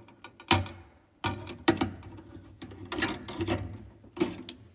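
Needle-nose pliers clicking and scraping against a bare copper ground wire, its green ground screw and the steel electrical box as the wire is squeezed down around the screw: a few short, irregular clicks and taps.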